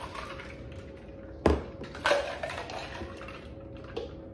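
A mixed drink being poured back and forth between a clear plastic cup and a blue tumbler, with a sharp knock about one and a half seconds in and a smaller one about half a second later.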